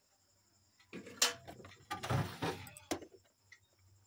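Refrigerator shelves and vegetable drawer being handled: a sharp knock about a second in, then a sliding scrape and a couple of short clicks.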